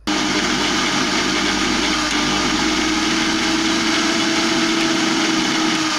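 Mixer grinder's brushed universal motor starting abruptly and running at full speed with a steady high whine. It runs with the burnt-out overload circuit breaker bypassed, showing that the motor itself is sound and the breaker was the fault.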